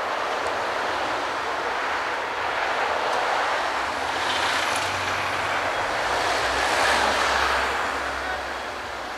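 Street traffic noise, swelling as a vehicle passes with a low rumble, loudest about seven seconds in and easing off near the end.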